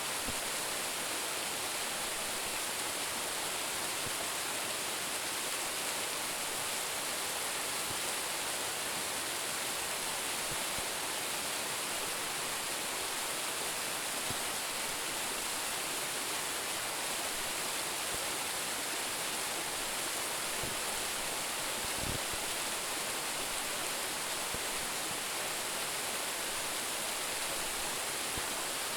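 Waterfall with a drop of about ten metres, giving a steady, unbroken rush of falling water that is hissy and bright. There is a faint low bump about twenty-two seconds in.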